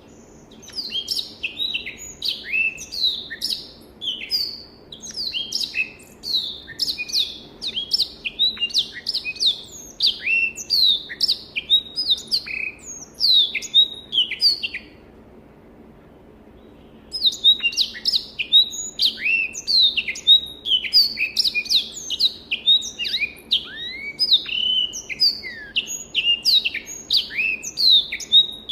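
Black-throated canary (Crithagra atrogularis) singing a fast, varied twittering song of quick sliding notes, breaking off for about two seconds halfway through before starting again.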